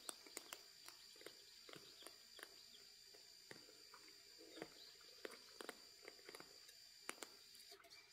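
Cats eating from a shared bowl: faint, irregular chewing clicks. A steady high whine runs beneath and cuts off suddenly near the end.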